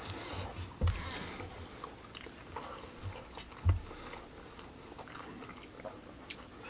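Someone biting into a chicken quesadilla and chewing, faint, with a few small clicks and two low thumps.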